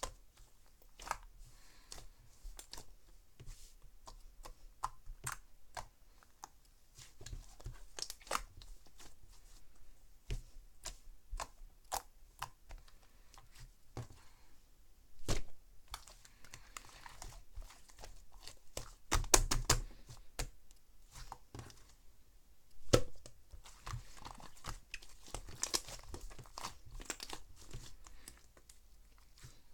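Slime being pressed, poked and stretched by hand, making many small sharp clicks and pops with a few louder bursts about two-thirds of the way in.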